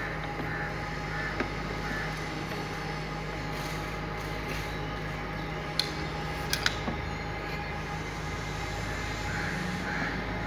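A few short, sharp metal clicks as the cast balancer unit is handled and seated on the tractor engine block, two of them close together a little past the middle, over a steady background hum.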